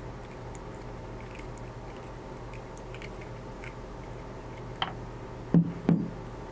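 Faint ticking of a small Allen wrench turning a tiny screw out of a memory module's aluminium heat-spreader fin, over a low steady hum. Near the end comes a sharp click, then two light knocks a moment apart as the freed screw is put down on the tabletop.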